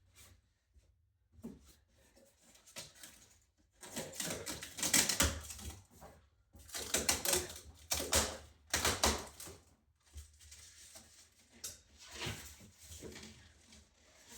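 Rapid clicking and rustling of things being handled, in two busy stretches of a couple of seconds each, with scattered quieter clicks around them.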